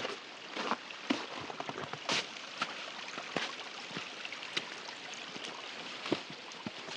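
Hiking-boot footsteps on a wet trail thinly covered in slushy snow over rock, an irregular run of scuffs and clicks about every half second, with the rustle of a jacket and pack.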